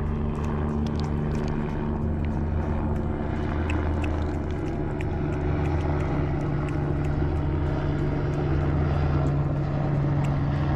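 Helicopter flying overhead: a steady, loud hum of rotor and engine.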